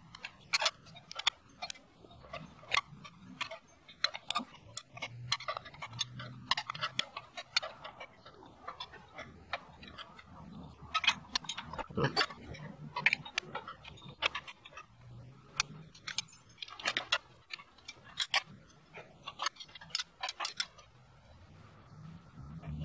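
Ratchet wrench clicking in irregular runs of quick clicks with short pauses, as the exhaust header flange nuts on a motorcycle engine are backed off.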